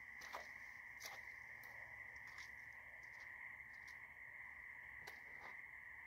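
Faint, steady high-pitched night chorus of frogs, with a few soft scuffs of footsteps.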